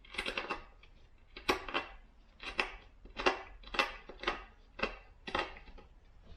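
About eight short clicks and clinks of small hard objects being handled, coming unevenly every half second or so.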